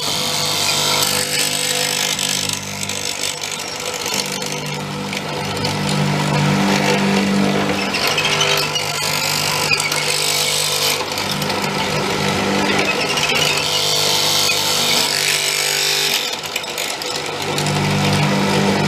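Multico K/3 hollow-chisel mortiser cutting a square hole in wood. Its electric motor hums steadily, and the auger-and-chisel cutting noise swells and fades several times as the chisel is plunged.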